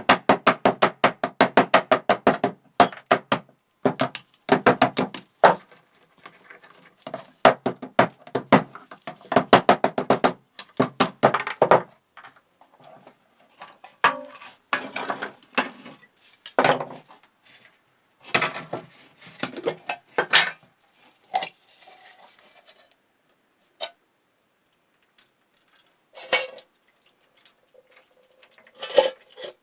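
Hand tools working on the metal parts of a wood chipper under restoration, making runs of rapid metallic clicking and clinking. The runs are dense for the first half and thin out into scattered knocks later.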